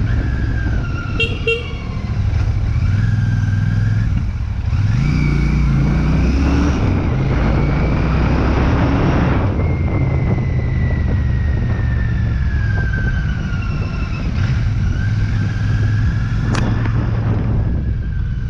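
Royal Enfield Shotgun 650's parallel-twin engine running on the road under wind noise, its pitch rising as it revs up about five seconds in. A short horn toot sounds near the start.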